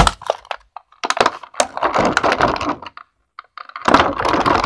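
Stiff clear plastic figure packaging crackling and crinkling as it is handled: a sharp snap at the start, then two longer stretches of crackling, one about a second in and one near the end.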